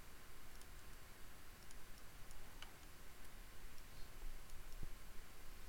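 A few faint, irregular clicks from a computer mouse over a low steady hiss.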